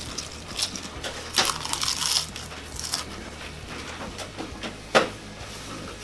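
Potato chips being crunched while chewed, crackly bursts strongest around one and a half to two seconds in, then a single sharp knock about five seconds in.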